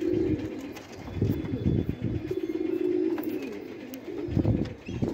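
Bangladeshi Golla pigeons cooing, low throaty coos overlapping one another almost without a break.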